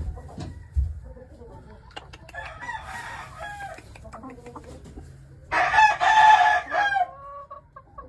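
A rooster crows twice, a fainter crow about two and a half seconds in and a louder, longer one near the end that falls away at its close, with hens clucking in between. A brief low thump comes just under a second in.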